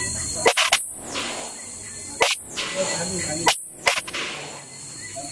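9mm pistol firing at an outdoor range: about five sharp shots, irregularly spaced, two of them close together near the start and two more a little later. The recording drops out briefly after each shot.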